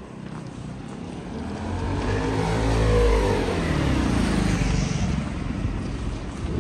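A motor vehicle's engine passing close by in city traffic, growing louder to a peak about three seconds in, its pitch rising and then falling as it goes past.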